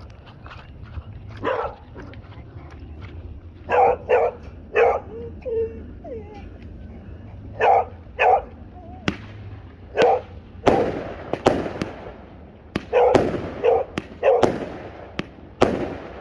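A dog barking repeatedly in short barks. From about nine seconds in, a 25-shot firework cake starts firing, sharp bangs in quick succession mixed with the barking.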